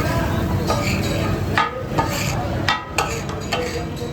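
Steel spatulas striking and chopping on a hot tawa griddle, the metallic clatter of katakat being made, with repeated irregular strikes about two a second that ring briefly. The sizzle of offal frying runs underneath.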